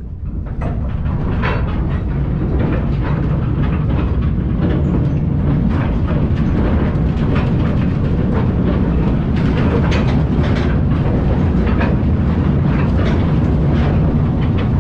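Coal-mine trolley train running on its narrow rails, heard on board: a steady low rumble with irregular clicks and clatter from the wheels over the rail joints.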